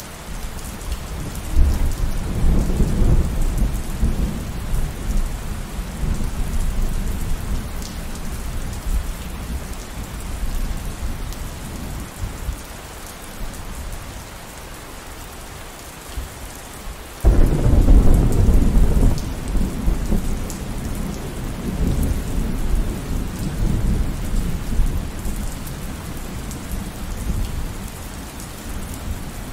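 Steady rain with thunder: a roll of thunder builds about two seconds in and fades out, then a sudden loud clap about halfway through rolls on for several seconds before dying away under the rain.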